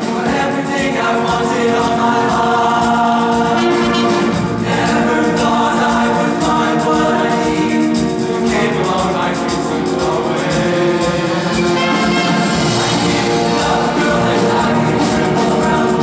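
Men's show choir singing together in a continuous song.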